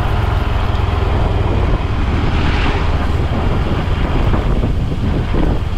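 Steady wind rushing over the microphone of a Honda CT125 motorcycle under way, with engine and road noise underneath.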